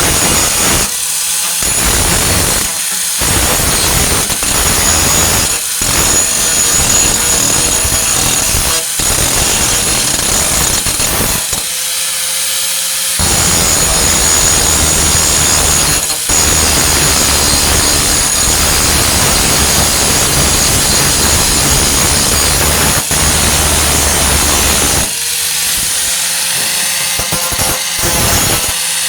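Angle grinder with a Type 27 grinding disc grinding down welds on a steel truck tailgate: a harsh, steady high whine that breaks off briefly every few seconds as the disc is lifted from the metal, with longer pauses about 12 seconds in and near the end.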